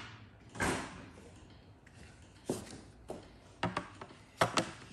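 Clear plastic pinball ramp being handled and set down into its recess on the wooden playfield: a series of light knocks and clatters, with the loudest pair near the end.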